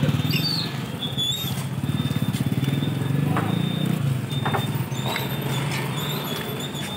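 Open-air vegetable market ambience with a small engine running close by, its fast pulsing beat loudest in the first second and again two to four seconds in, along with a few scattered light knocks.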